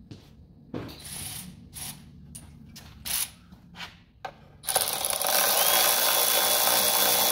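A few short ratcheting clicks as a socket and extension are fitted to the fuel-pump clamp bolt, then about two-thirds of the way in a cordless power tool starts and runs steadily, driving the clamp bolt in.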